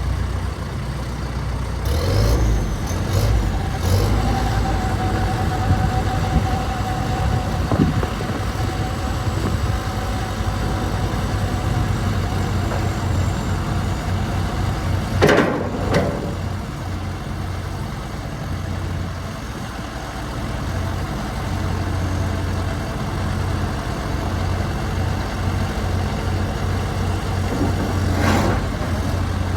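A John Deere 310SL backhoe's turbo diesel engine idling steadily, with a few short louder noises over it, the clearest about halfway through.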